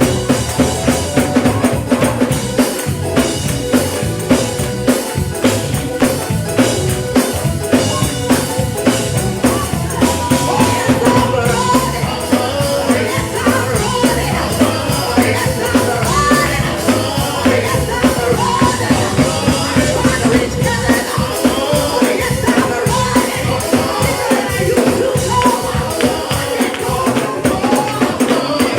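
Live gospel praise music, with a drum kit keeping a fast, steady beat under sustained instrumental tones.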